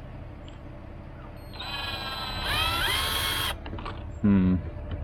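Power drill driving a screw into a wooden coop door: the motor whines for about two seconds, rising in pitch, then stops abruptly. The screw spins without tightening, which he guesses means the screws are just going through the wood.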